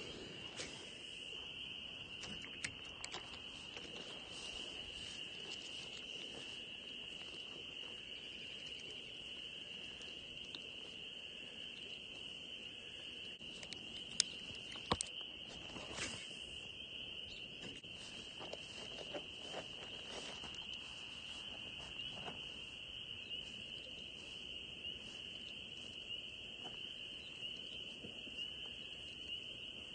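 A steady high-pitched chorus of small calling animals, unbroken throughout, with a few sharp clicks about halfway through.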